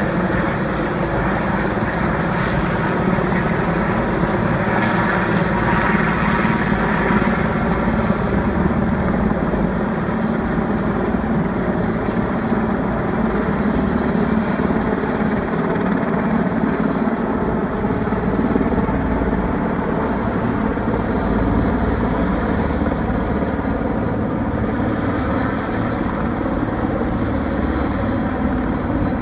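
Large single-rotor heavy-lift helicopter flying overhead with a load slung on a long line, its rotor and engines making a steady, continuous sound.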